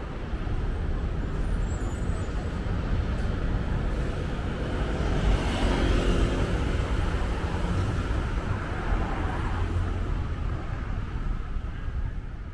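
Street traffic noise with a steady rumble, one vehicle passing loudest about halfway through.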